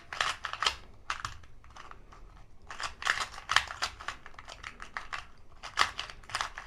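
A 2x2 Rubik's cube being scrambled by hand: its plastic layers are turned quickly in runs of rapid clicking, with short pauses between the runs.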